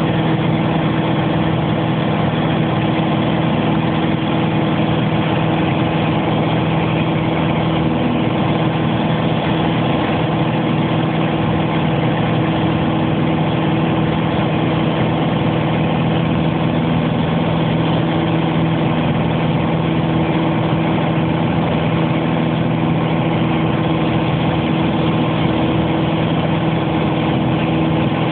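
Aeroplane engine running steadily in flight, a constant drone at an unchanging pitch.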